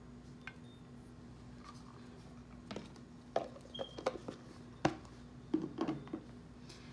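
Dishes and utensils being handled, giving a few light knocks and clicks about three seconds in, over a steady low hum.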